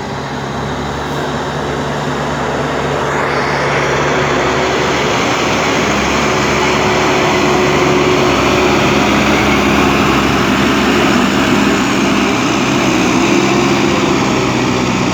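JCB 3DX Super backhoe loader's diesel engine running steadily. It grows louder over the first several seconds, then holds.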